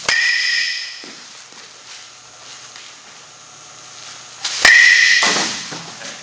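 Two hits of a baseball off a metal bat, about four and a half seconds apart. Each is a sharp crack followed by about a second of ringing ping from the bat that fades out.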